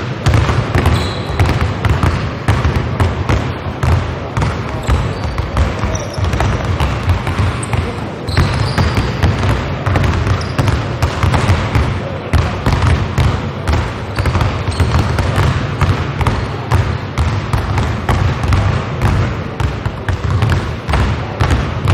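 Several basketballs being dribbled at once on a hardwood gym floor, each player bouncing two balls: a dense, continuous patter of overlapping bounces, with a few short high squeaks now and then.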